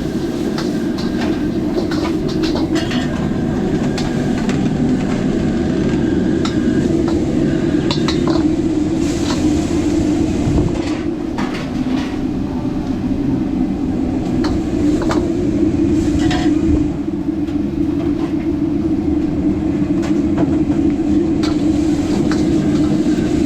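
Hawker stall cooking: a loud, steady roar with frequent clinks and scrapes of metal utensils on a pan.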